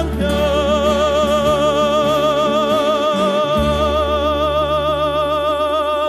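Klapa vocal group holding the song's final chord. The top voice sustains one note with a wide, even vibrato, while the lower parts hold beneath it and shift to a new note about halfway through.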